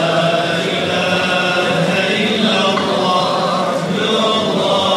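Large crowd of men chanting in unison in long, drawn-out syllables, with short breaks about two seconds in and again near four seconds.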